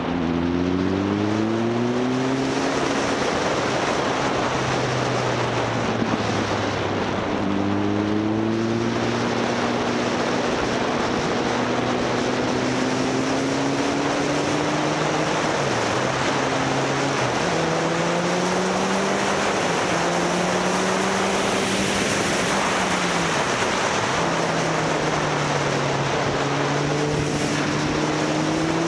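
Motorcycle engine running under way, its pitch climbing at the start and then rising and falling with the throttle, dipping briefly twice. A steady rush of wind noise runs under the engine.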